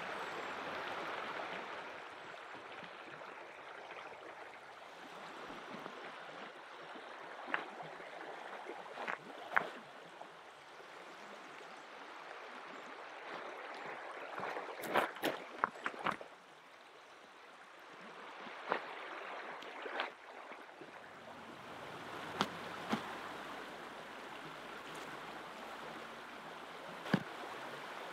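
A shallow river running steadily over gravel, with sharp knocks of river stones set down against each other on the gravel, the loudest in a quick cluster about halfway through.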